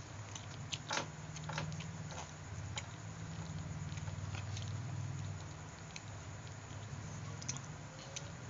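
Person chewing and biting food, a string of short wet clicks and smacks, loudest about a second in. A steady low hum runs underneath.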